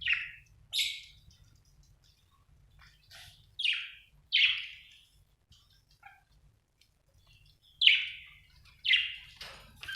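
Budgerigar calling: about eight short, loud chirps in small groups, with a pause of a couple of seconds midway.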